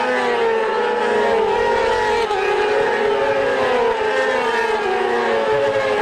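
A pack of racing motorcycles running at high revs, several engines overlapping, their pitches rising and falling as the bikes accelerate and change gear through the corner.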